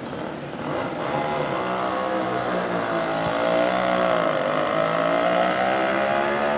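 A motor vehicle's engine running steadily as it passes along the street, its pitch dipping about four seconds in and then rising again.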